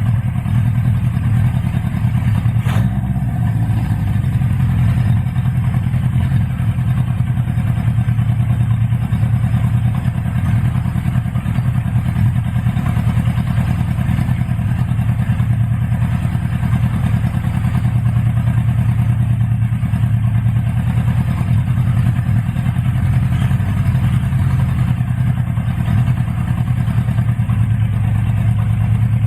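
Honda CB550F's air-cooled inline-four engine idling steadily, its carburettors freshly adjusted.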